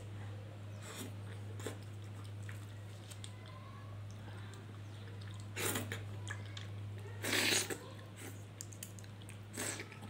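A small kitchen knife cutting and scraping through papaya peel and flesh in short crunching strokes, three louder ones in the second half, over a steady low hum.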